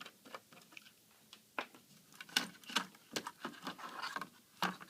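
Irregular light clicks and taps of a screwdriver and fingers working on a laptop's internal parts and plastic casing, with a few sharper knocks through the middle and near the end.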